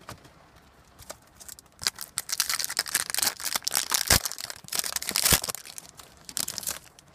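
The wrapper of a 2014 Topps Strata football card pack crinkling and tearing as it is ripped open by hand, a dense crackle starting about two seconds in. Two short, dull knocks come in the middle of it.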